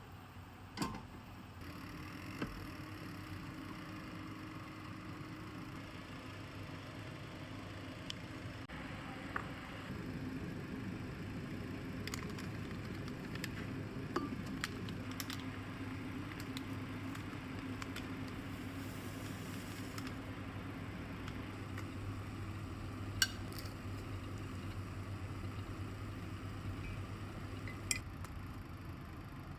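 Steady electrical hum of a kitchen appliance switched on about two seconds in, with scattered light clicks and clinks of kitchenware.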